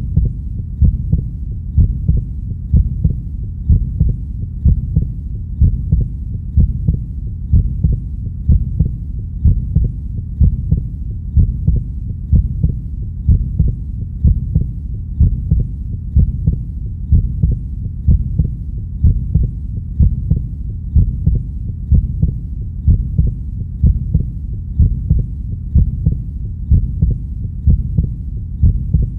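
Heartbeat beating at a slow, steady, even rhythm, each beat a low double thud, over a constant low rumble.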